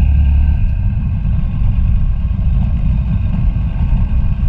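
Vehicle driving on a dirt road: a loud, steady low rumble of engine and tyres on the unpaved surface, with a deeper hum that drops away about half a second in.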